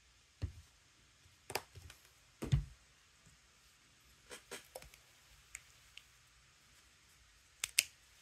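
Small plastic taps and clicks from craft-paint bottles and a plastic paint palette being handled on a cutting mat: a dozen or so scattered knocks, the loudest about two and a half seconds in, and a quick double click near the end.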